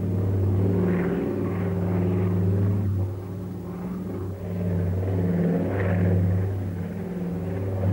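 Piston engines of a World War II flying boat running in flight: a steady low drone whose level swells and dips about once a second.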